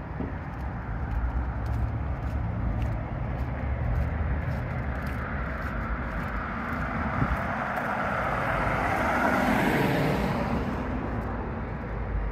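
A car passing on the street: its tyre noise swells to a peak about ten seconds in and then fades, over a low rumble of outdoor traffic.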